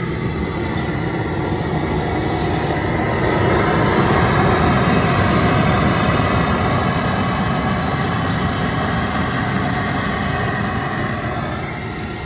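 Propane burner of a crawfish cooker running under a large pot of water at a rolling boil: a steady rushing noise that swells in the middle and eases off near the end.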